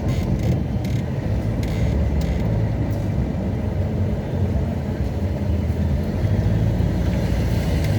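Car driving, heard from inside the cabin: a steady low rumble of engine and road noise, with a few light knocks in the first three seconds.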